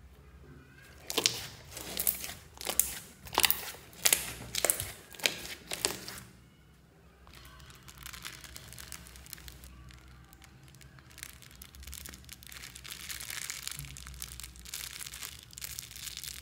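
Slime being stretched and folded, giving a run of sharp, loud pops and crackles, about eight in five seconds. After a short pause it gives way to a softer, steady crackling that grows a little louder near the end.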